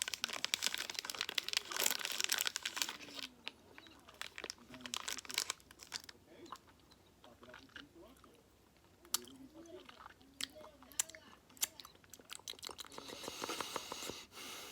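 Close-up chewing of a gummy fruit snack, with wet mouth clicks and smacks, heaviest in the first few seconds and then sparse. A short rustle near the end.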